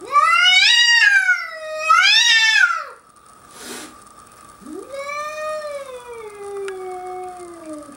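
Domestic cat yowling, a threat caterwaul at a bobcat on the other side of the glass: one long wavering yowl that rises and falls twice, then after a short pause a second, lower yowl that slowly falls away.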